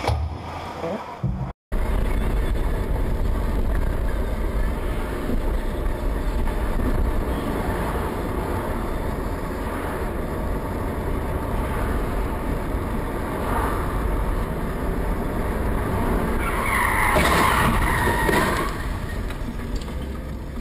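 Steady engine and road rumble heard from inside a moving car, picked up by a dashcam. Near the end a louder, higher sound rises over it for about two seconds.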